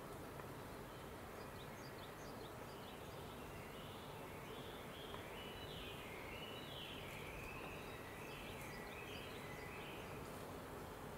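A songbird singing over a steady outdoor hiss: it repeats short phrases that step up and down in pitch, clearest from about four seconds in until near the end, with faint high chirps before.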